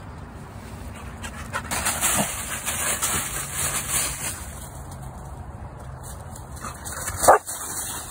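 Staffordshire bull terrier racing through dry fallen leaves, the leaves rustling and crunching for a couple of seconds, then one short, loud bark near the end.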